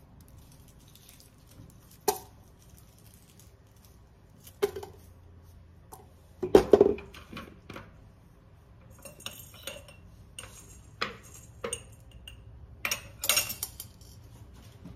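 Whole ingredients (bay leaves, garlic and onion pieces, a carrot chunk, black peppercorns) dropped into an empty metal stockpot, each landing with a separate knock or small metallic clink. The loudest is a heavy double knock about halfway through; near the end comes a quick run of sharp clinks.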